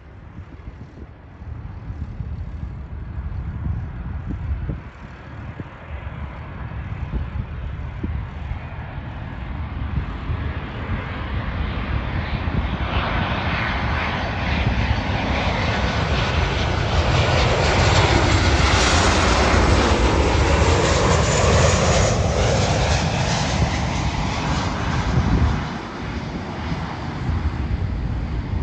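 Boeing 737 airliner's jet engines on final approach, the noise growing steadily louder as the aircraft comes in low and passes, with a swooping whoosh at its loudest, then falling off sharply near the end. A low wind rumble on the microphone runs underneath.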